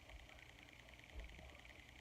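Near silence: room tone with a steady faint hiss, and one faint low thump a little past halfway.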